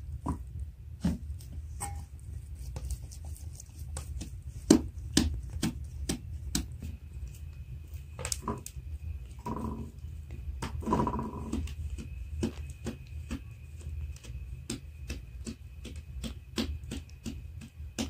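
Soft, irregular pats and slaps of bread dough being worked and shaped into balls by hand, over a steady low hum. Two short pitched calls come near the middle.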